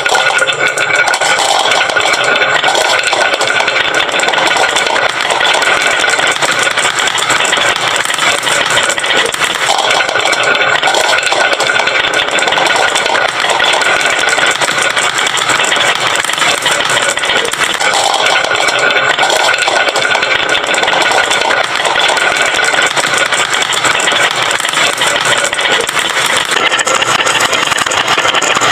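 Many glass marbles rolling and clattering down a wooden marble-run slope, a dense, continuous rattle of small clicks.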